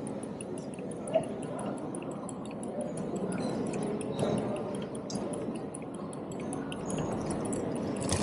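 Busy train station ambience: a steady murmur of background noise with scattered small clicks and one sharp tick about a second in.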